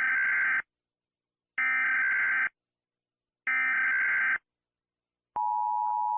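Emergency Alert System SAME header: three short bursts of digital data tones, each about a second long, about two seconds apart. About five seconds in, the steady EAS two-tone attention signal begins.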